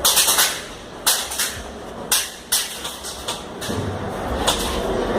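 Airsoft guns firing: a string of sharp pops, some in quick pairs, about one or two a second.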